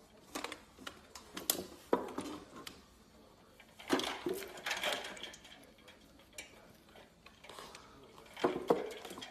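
Stainless steel dog bowls clanking and rattling in a raised wooden feeder as a puppy shoves its head and paws into them, with ice cubes knocking about in the water. The clanks come irregularly, the loudest about two seconds in and near the end.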